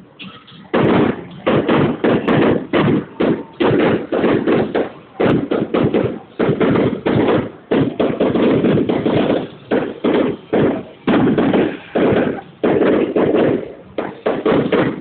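Fireworks going off in a rapid series of sharp bangs and crackles, several a second in quick clusters with brief gaps between them.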